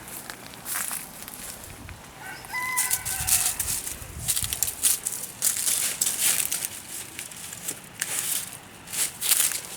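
A dog rummaging and sniffing among plastic farm tubing and dry vegetation, in repeated rustling, crackling bursts. A rooster crows once about two and a half seconds in, its call falling at the end.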